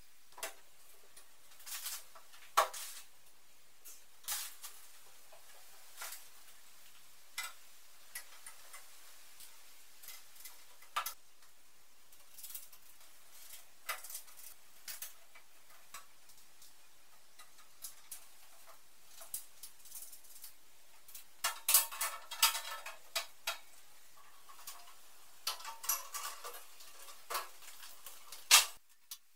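Clanks, knocks and light clicks of sheet-steel blast cabinet panels and parts being handled and fitted together. The knocks come singly every second or two, then a busier run of ringing metal clatter about two-thirds through, and a sharp knock just before the end.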